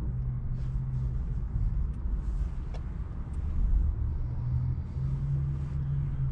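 Car interior noise while driving: a steady low engine and road rumble with a low hum that strengthens slightly in the second half.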